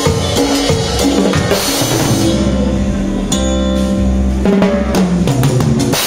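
Band music with live drums struck with sticks over bass and held pitched notes. About two seconds in, the drum hits mostly drop out for a couple of seconds under a sustained chord, then come back.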